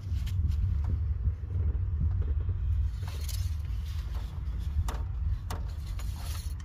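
Engine oil dipstick being wiped with a rag and slid back into its tube, several clicks and scrapes, over a steady low rumble.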